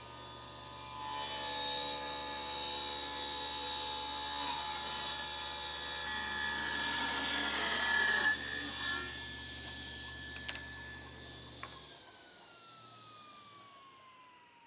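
Table saw ripping the corners off a square wooden turning blank, with the motor humming steadily under the cutting noise. About twelve seconds in, the motor hum stops and the blade's whine falls steadily in pitch as it coasts down.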